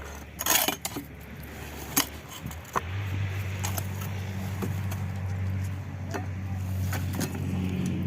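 An engine running steadily, stepping up to a higher, louder pitch about three seconds in, with scattered metallic clinks and knocks.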